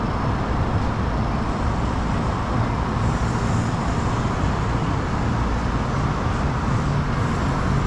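Steady road traffic noise: a continuous hum of passing vehicles with no distinct events.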